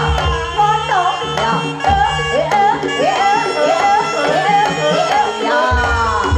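Traditional Javanese jaranan ensemble music: hand drums beating under a winding, ornamented lead melody that slides up and down in pitch, over steady held gong-like tones.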